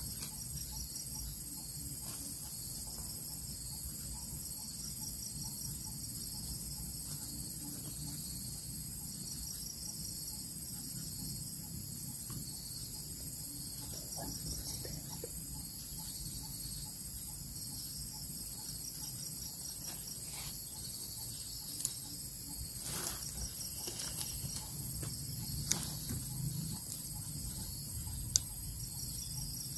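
Steady high-pitched chorus of crickets and other insects, with a pulsing chirp in it, over a low rumbling background. A few short sharp clicks come in the second half.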